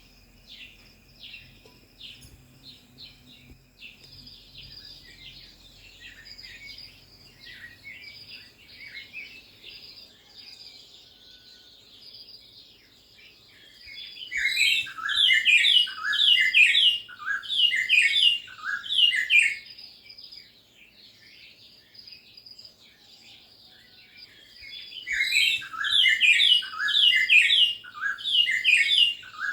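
Wild birds chirping: a steady, fast, high twittering goes on throughout. About halfway through and again near the end, a loud song of rapid notes breaks in, each note sliding downward, several a second, lasting a few seconds each time.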